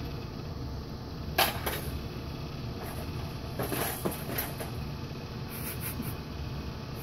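Plastic knocks and clicks from a baby's toy push walker being pushed and bumped, the loudest about one and a half seconds in and a cluster around four seconds, over a steady low hum.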